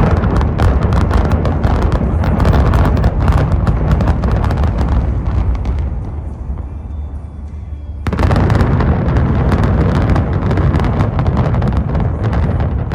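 Building implosion: a rapid crackle of many demolition charges going off in sequence over a heavy low rumble from the collapse. The barrage eases off, then a second burst of blasts starts abruptly about eight seconds in. Music plays underneath.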